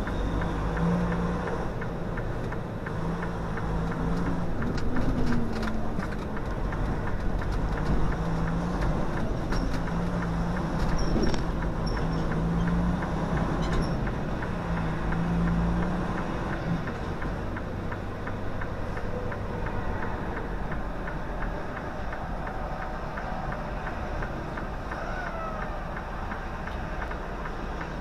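Semi-truck's engine and road noise heard from inside the cab as the truck drives through city streets: a steady low rumble, with a low engine hum that swells and drops several times in the first half before settling.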